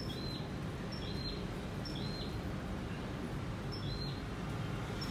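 A small bird chirping in short, high chirps that drop in pitch, about five times with a pause in the middle, over a low, steady background hum.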